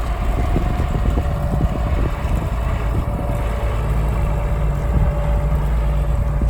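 John Deere 690B excavator's diesel engine running steadily at idle, a low, even drone.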